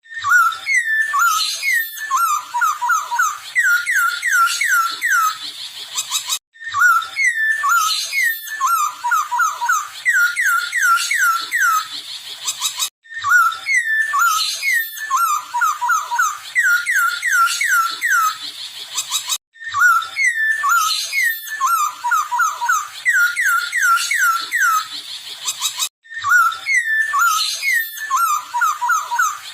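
Poksay Hongkong, a laughingthrush in breeding condition, singing: runs of quick downward-slurred whistled notes. The same song phrase repeats about every six and a half seconds, with a short break between repeats.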